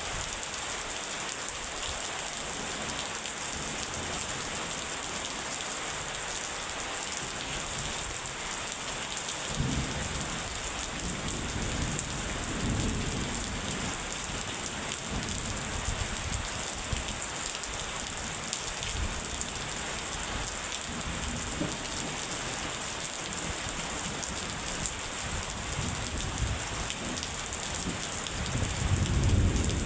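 Steady rain falling, with rolls of thunder rumbling in about a third of the way through, again around the middle, and loudest near the end.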